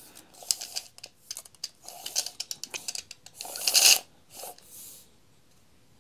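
Deli Home Series 3 m tape measure being worked by hand: the blade clicks and rattles as it is handled, then runs back into the case with a loud rasping zip that ends about four seconds in. It is pulled out again briefly just after, and then all goes quiet.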